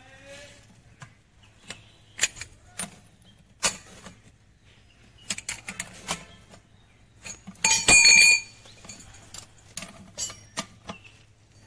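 Metal hand tools clinking and clicking against the Maruti Suzuki Ertiga diesel gearbox as a socket is worked on a tight, locked bolt while a screwdriver holds the gear. About eight seconds in there is one loud metal clang that rings briefly.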